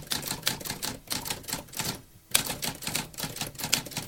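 Typewriter keys striking in quick, irregular succession, with a short pause about halfway through.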